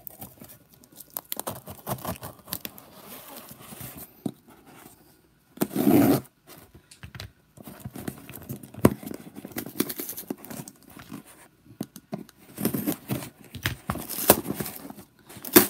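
A large cardboard shipping box being opened by hand: packing tape tearing and cardboard flaps scraping and rustling, in irregular rasps. The loudest tear comes about six seconds in, with a run of them near the end.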